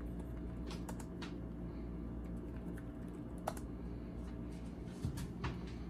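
Typing on an Alienware M17 R2 laptop keyboard: irregular, fairly sparse key clicks.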